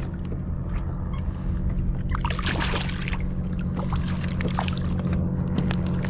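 Water splashing and crackling as a hooked weakfish thrashes at the surface beside a kayak, getting busier about two seconds in, over a steady low rumble.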